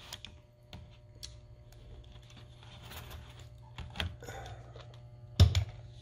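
Scattered light clicks and taps from an HP 15 laptop's plastic case and bare metal keyboard plate being handled by hand during disassembly, with a louder knock near the end.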